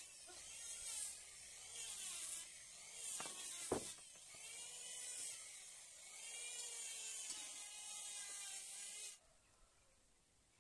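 Felt-tip marker scratching along teak beams in short repeated strokes, with one sharp tap of a steel square against the wood about four seconds in; the scratching stops suddenly near the end.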